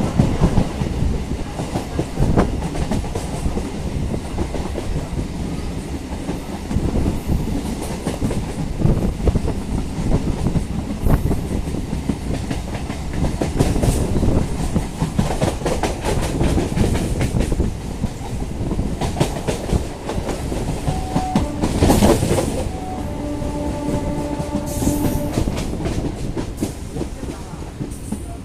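EMU local train running along the track, its wheels clacking over rail joints under a steady rumble. About twenty-three seconds in, a horn sounds for about three seconds.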